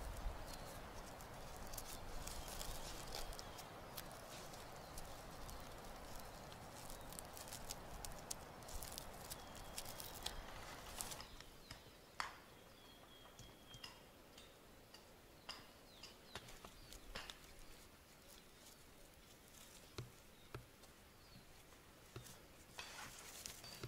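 Rustling and light handling noises: twine being wound and pulled around peeled wooden poles lying on dry grass. There is a steady rustle for the first half, then after a sudden drop the sound goes quieter, with scattered small clicks and taps.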